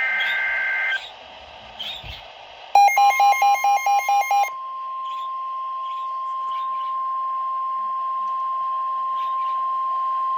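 NOAA Weather Radio alert signalling. The last burst of the two-tone SAME data header ends about a second in. After a short pause comes a rapid string of about eight electronic beeps, and under them the steady warning alarm tone starts and holds to the end; it is the tone that comes before a warning broadcast, here a tornado warning.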